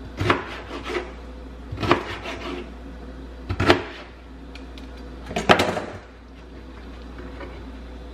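Chef's knife chopping pineapple into cubes on a plastic cutting board: several sharp knocks of the blade hitting the board, irregularly spaced a second or two apart, stopping about six seconds in.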